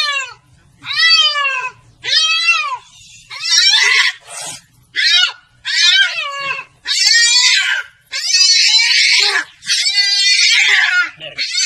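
A domestic cat yowling loudly in about ten repeated calls. The first few calls rise and fall in pitch, and the later ones turn harsher and more strained.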